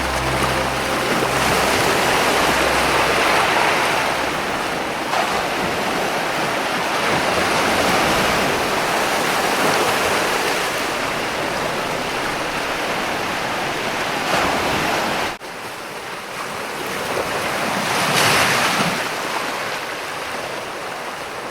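Ocean surf surging and washing against rocks in a continuous rush that swells and ebbs. About three-quarters of the way through the sound drops off abruptly, then another wave builds and breaks near the end.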